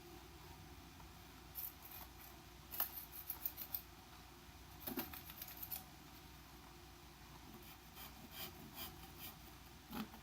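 Kitchen knife blade scraping and clicking faintly against the casing of a Sanyo Katana LX flip phone, in several short clusters of sharp high ticks with pauses between them.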